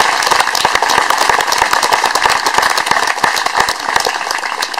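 Audience applause: many hands clapping in a dense patter that eases a little near the end.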